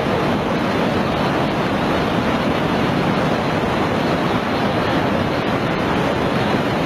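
Tsunami surge of churning floodwater rushing through town streets: a steady, unbroken roar of turbulent water.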